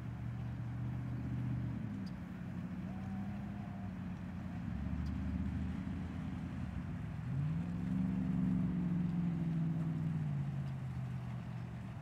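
Low engine hum over a faint wash of outdoor noise. Its pitch shifts about two seconds in, climbs sharply a little past seven seconds in, holds, and drops back down about three seconds later.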